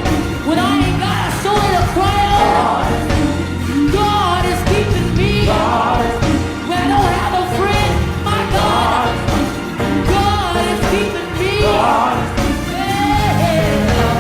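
Gospel worship music with singers over a full band, with a steady beat.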